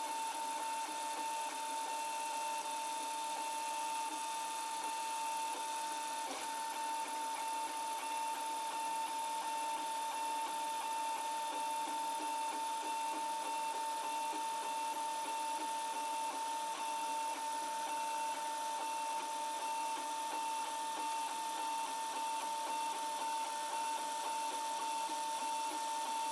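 Protomaker Black Sprint 3D printer running a print, its stepper motors driving the print head and bed with a steady high whine. There is a light tick about six seconds in.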